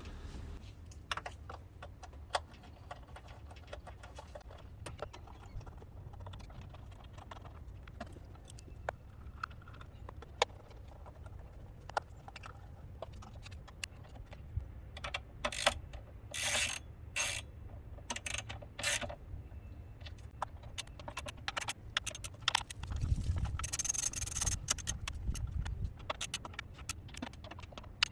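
Hand tools at work under the hood: scattered metallic clicks and clanks, with a cluster of short scraping or rustling bursts past the middle and a longer hissy stretch near the end.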